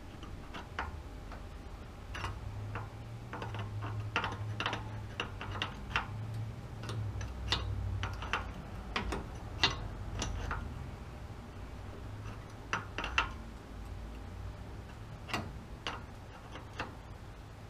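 Wrench clicking and tapping on the brake line fitting as it is tightened into a new rear drum-brake wheel cylinder, the metallic clicks coming irregularly. A low hum runs under the first half.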